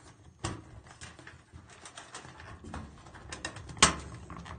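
Sheet-metal wiring cover of a fluorescent light fixture being pushed back onto its retaining tabs: a run of light metal clicks and taps, with a sharp knock about half a second in and a louder one near the end.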